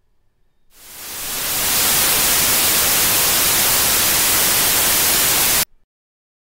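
Loud radio-static hiss that fades in over about a second, holds steady for about four seconds, then cuts off abruptly.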